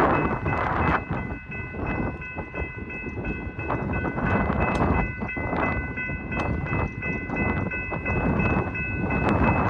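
Railroad crossing bell ringing steadily, a bright, high, continuous ring, over a rough, gusting rumble of low noise.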